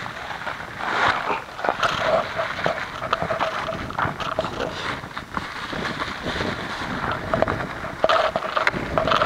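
Wind buffeting the microphone, with irregular rustling and knocks as covered cardboard cases are shifted by hand.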